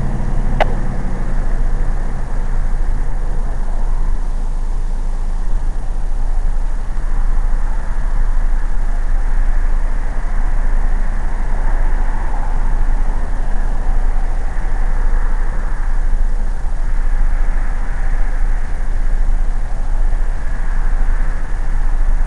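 Steady low rumble and hiss of a vehicle, with a brief sharp click about half a second in.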